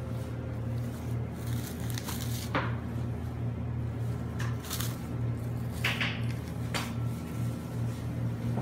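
Clear plastic cling wrap being pulled and crumpled in gloved hands, a few short crackles and rustles spaced a second or so apart. A steady low hum runs underneath.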